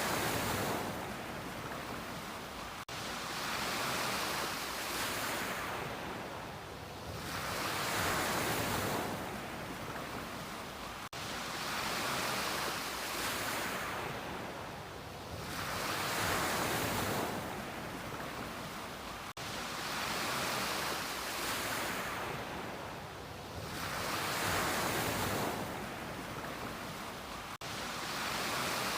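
Ocean surf breaking and washing up the beach, a rushing hiss that swells and ebbs about every four seconds.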